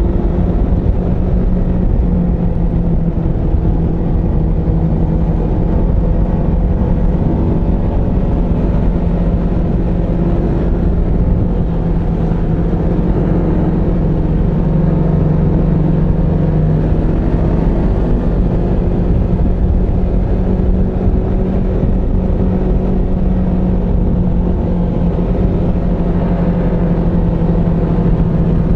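Snowmobile engine running steadily as the sled cruises along a trail, with a deep rumble underneath. The engine note holds nearly even, shifting only slightly in pitch now and then.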